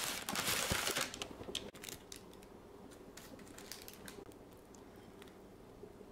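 White paper bakery bag crinkling and rustling as a bun is drawn out of it, loudest in the first second, then a few lighter rustles and clicks.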